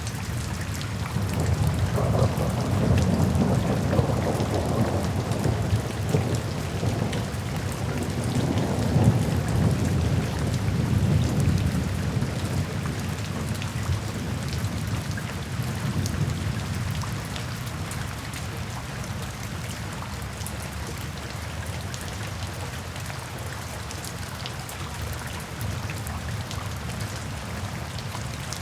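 Steady rain falling, with a long low roll of thunder that swells a couple of seconds in and dies away about halfway through, leaving the rain alone.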